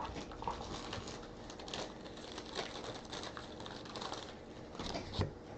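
Trading-card box and packs being handled: irregular rustles and light clicks, with a louder knock about five seconds in.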